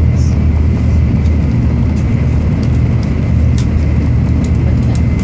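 Steady rumble of a train running at speed, heard inside the passenger cabin, with a faint steady high whine over it.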